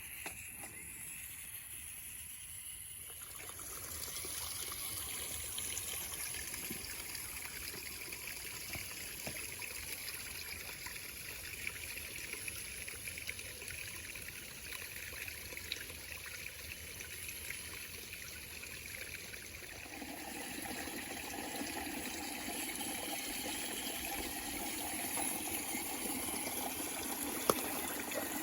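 A small waterfall and stream running: steady trickling and splashing water that gets louder about four seconds in. A second, lower steady sound joins about twenty seconds in, with a few faint clicks.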